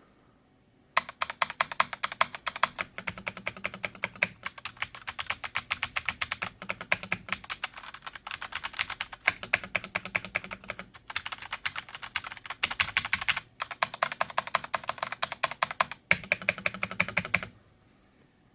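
Filco mechanical keyboard with Cherry MX Red linear switches being typed on hard and at random, a fast dense clatter of keys bottoming out. It starts about a second in, breaks off briefly a few times, and stops about a second before the end.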